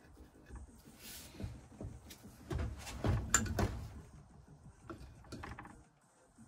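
Adjustable spanner working a tight, rusted fitting on a Lister Style 2 vaporiser: metal clicks, scrapes and knocks, busiest around three seconds in with one sharp click.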